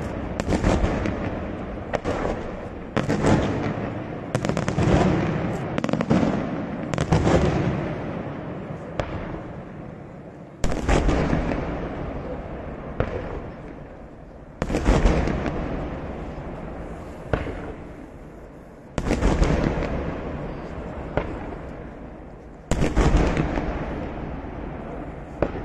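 Daytime fireworks display: shells bursting with sharp bangs, each fading away in a long echoing rumble. About one burst a second at first, then louder single bangs every four seconds or so, with smaller ones between.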